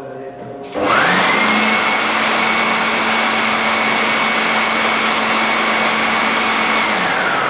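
Electric leaf blower switching on about a second in. Its motor whine rises quickly to a steady high pitch over a loud rush of air, then begins to wind down near the end.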